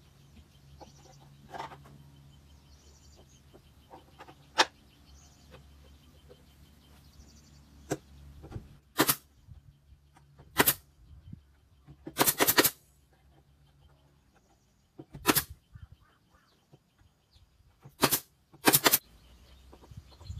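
A series of short, sharp cracks from work on a wooden speaker cabinet, about eight of them, mostly single with one quick cluster in the middle. Faint bird chirps in the first few seconds.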